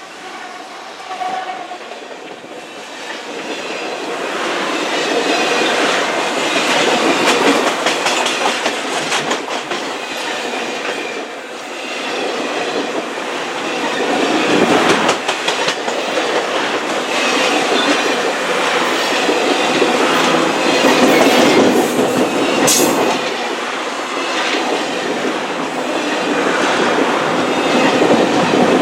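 A train rolling past at close range, its wheels clicking over the rail joints; the sound swells over the first few seconds and then stays loud.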